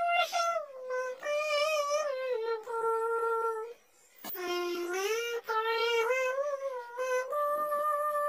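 A high, childlike synthetic voice singing a sholawat melody unaccompanied, in held notes with a slight waver, phrase after phrase, with a short break about four seconds in.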